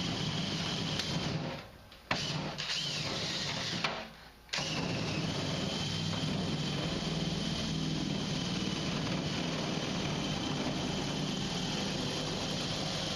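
Electric power tool motor running steadily while cutting the sheet-metal side of a furnace, cutting out briefly twice, about two and four seconds in, and starting up again at once each time.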